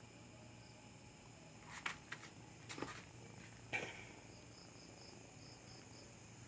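Faint, steady insect-like chirping in the background, with a few short rustles or knocks about two to four seconds in.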